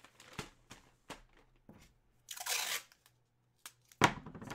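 Jersey packaging being handled and torn open: a series of short crackles and rustles, a longer tearing rustle about two and a half seconds in, and a louder crackle near the end.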